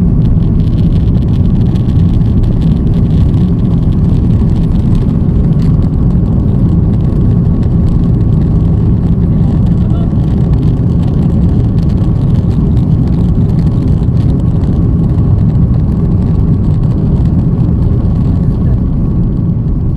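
Loud, steady rumble of a jet airliner heard from inside the cabin: engine and airflow noise, heaviest in the low end, with a faint steady tone above it.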